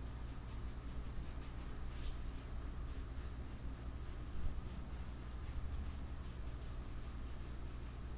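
Pencil scratching on paper in short shading strokes, faint and irregular, with a steady low hum beneath.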